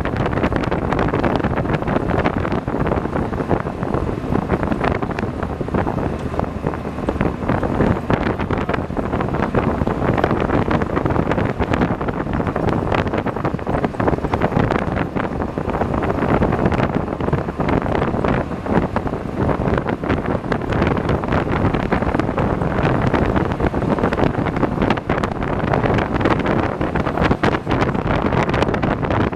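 Wind buffeting the microphone while riding in an open-sided amphibious duck boat on a road, with the vehicle's engine and road noise running steadily underneath.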